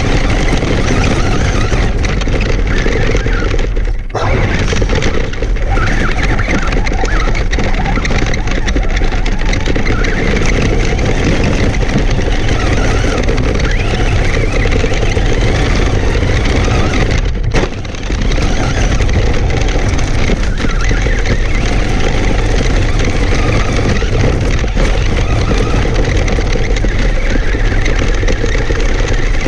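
Traxxas Stampede RC monster truck driving fast over gravel, heard from a camera mounted on the truck: a loud, steady rush of tyres on stones and drive noise. It dips briefly twice, about four seconds in and again past halfway.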